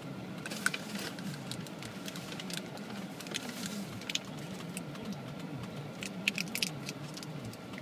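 Scattered small clicks and crinkles of a small plastic candy wrapper being picked at by fingers to get it open.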